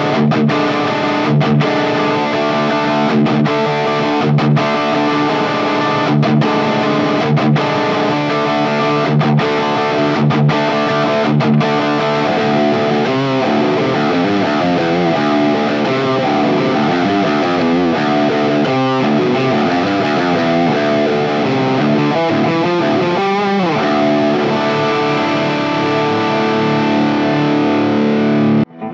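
Kiesel Solo S6H six-string electric guitar with Kiesel Lithium pickups, played through a Fractal Audio AX8 on the stock Friedman HBE high-gain preset, with a distorted tone. Ringing chords are cut off in short stops at first. From about halfway the playing turns to lead lines with bent, wavering notes, then returns to held chords. The sound drops out briefly just before the end.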